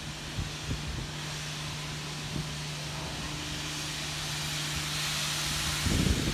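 Steam hissing steadily from a pair of steam locomotives, blowing from low down beside the cylinders and growing a little louder, over a steady low hum. Wind gusts on the microphone near the end.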